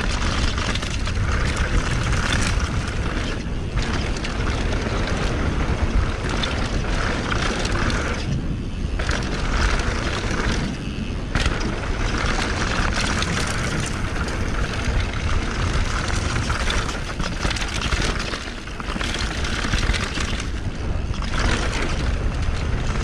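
Steady rushing wind buffeting the microphone of a mountain bike's action camera at speed, mixed with tyres rolling over dry, loose dirt. The rush dips briefly a few times.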